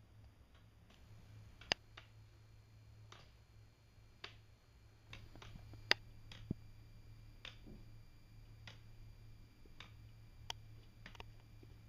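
Weight-driven wooden escapement ticking: faint sharp wooden clicks about once a second as the pallets work the gear teeth, two of them much louder than the rest, one near the start and one about halfway.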